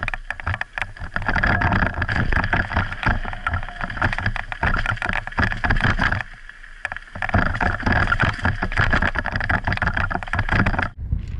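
Mountain bike ride recorded by a helmet-mounted action camera: a dense, continuous clatter of rapid rattles from the bike and camera jolting over rough trail, with rushing noise. It drops briefly about six seconds in, and the sound changes abruptly near the end.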